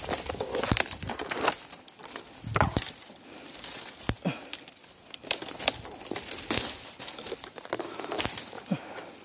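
Thin, dry bamboo stems and brush rustling, crackling and snapping as someone climbs and pushes through them, with many irregular sharp clicks.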